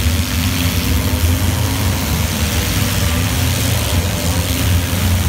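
Engines of several demolition derby cars running loud together: a deep, continuous rumble with a steady hiss over it.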